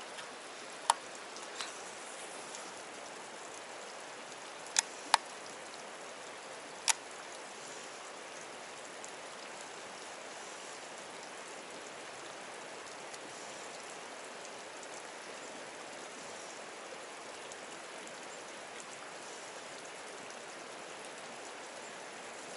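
Steady rush of running creek water, with a few sharp ticks in the first seven seconds.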